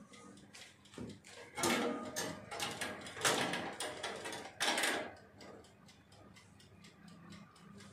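Wire rack of a countertop oven being pulled out with a metal rack-lifter, scraping and clanking in its runners in four or five short strokes over the first five seconds, then quieter.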